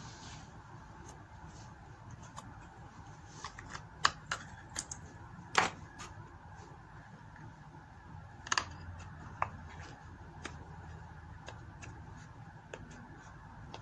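Scattered sharp clicks and taps of small parts being handled while fitting metal wheel rims to an RC truck, with the loudest knocks about four and five and a half seconds in and a quick cluster about halfway through.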